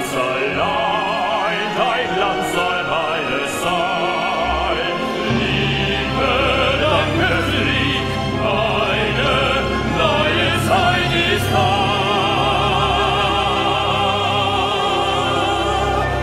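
Musical-theatre singing: male voices sing with strong vibrato over an orchestra. A deep bass comes in about five seconds in and the music grows fuller.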